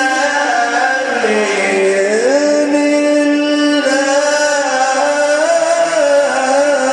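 A male Quran reciter's voice drawing out one long, ornamented melodic phrase in mujawwad style, the pitch stepping down about a second in and climbing back up about a second later before holding steady.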